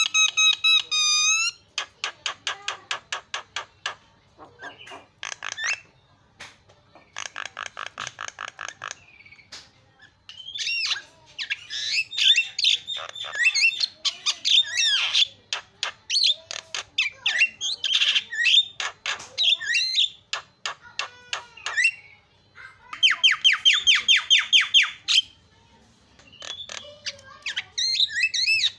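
Javan myna singing a long, varied song: fast rattling trains of repeated notes alternating with whistled, gliding and chattering phrases, broken by short pauses.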